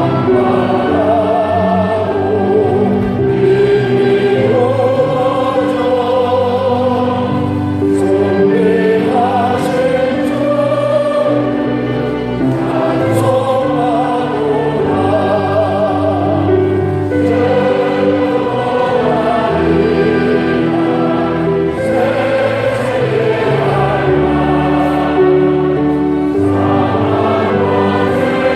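Congregation singing a hymn together, many voices over steady instrumental accompaniment.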